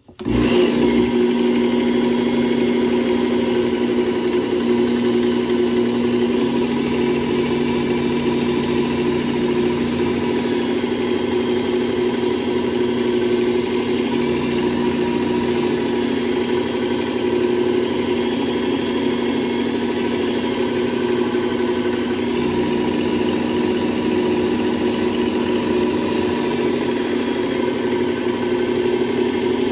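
Work Sharp electric belt sharpener running with a steady motor-and-belt hum as the steel paper-cutter blade is run across the abrasive belt to sharpen its slight bevel.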